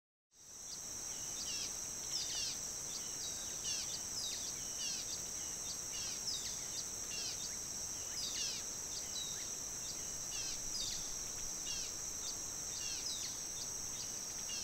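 Tropical forest ambience, fading in just after the start: a steady high-pitched insect drone with many short, downward-sliding bird chirps.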